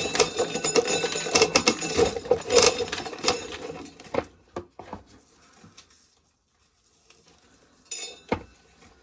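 Dry corn kernels rattling and clicking under hand shelling, a busy clatter for about four seconds that then thins to a few scattered clicks.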